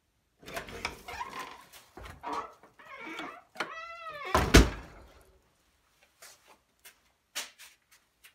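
Wooden door being pushed shut by hand: rustling and knocks as it is handled, a short squeal from the hinge that rises and falls in pitch, then a loud thud as the door closes about four and a half seconds in, followed by a few faint clicks of the latch.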